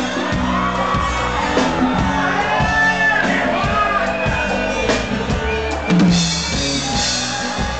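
Live sertanejo band playing an intro, with drums and sustained bass notes, while the crowd shouts and sings along.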